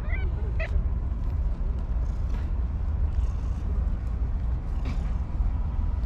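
Steady low rumble of wind buffeting the microphone, with a brief faint high chirp near the start.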